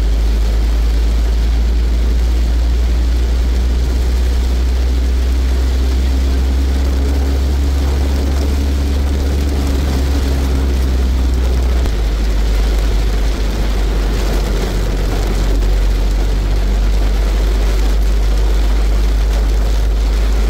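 Steady low rumble inside a moving car: engine and tyre noise heard from the cabin. The low drone shifts about twelve seconds in.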